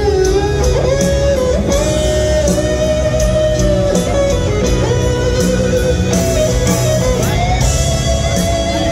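Live rock band playing a slow ballad: an electric guitar solo of long, sustained notes that slide and bend from one pitch to the next, over bass, drums and keyboard.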